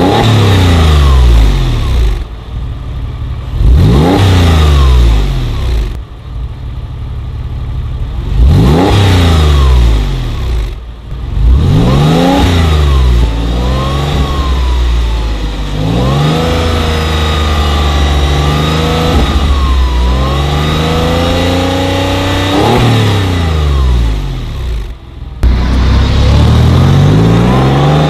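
Exhaust of a Porsche 996's flat-six through an aftermarket FVD stainless-steel sport muffler set (TÜV street version), revved repeatedly: several quick throttle blips that rise and fall in pitch, a longer spell of wavering held revs in the middle, and another loud rev near the end as the car pulls away.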